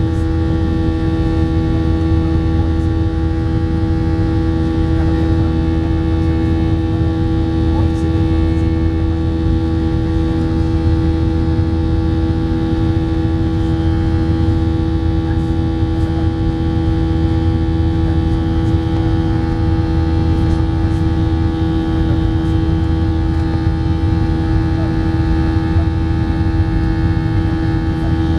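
Cabin sound of a Boeing 737-700 climbing just after takeoff: its CFM56-7B turbofan engines at climb thrust make a loud, steady drone with a strong humming tone and several fainter steady tones.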